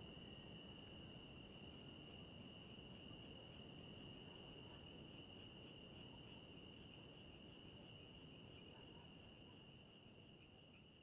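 Faint night chorus of crickets: a steady high trill with a fainter chirp repeating about every three-quarters of a second, over low background hiss, dropping slightly near the end.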